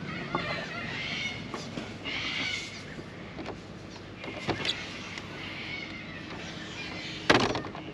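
Plastic fan housing being shifted by hand on a caravan roof: scattered light knocks and scrapes, with a louder scrape near the end.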